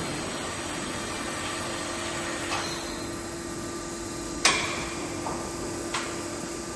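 Steady machine hum with three short, sharp knocks; the loudest, about halfway through, rings briefly.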